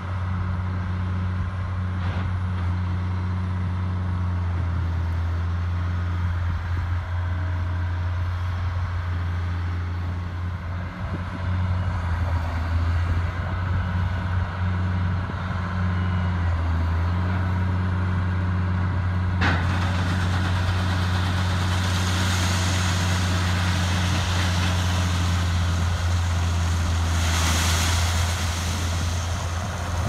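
Engine of corn-harvest machinery running at a steady speed, a low drone. About twenty seconds in there is a sharp click, and then a rushing hiss joins the drone, swelling twice.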